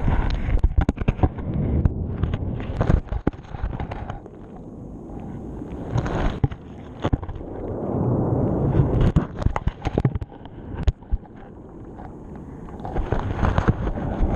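Action camera underwater, being dragged and tumbled across the sea bed by the surge: many irregular knocks and clatters of the housing against the bottom over a low rumble of churning water that swells and ebbs.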